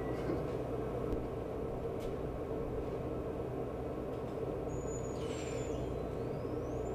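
Steady low rumble. In the second half come a few high whistles like a dolphin's, one held and then falling, and one gliding upward.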